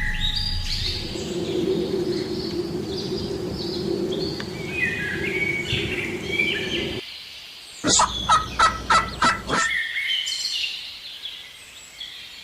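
Wild turkey gobbling once, a loud rapid rattling run of about six notes lasting under two seconds, about eight seconds in. High bird chirps sound before and after it.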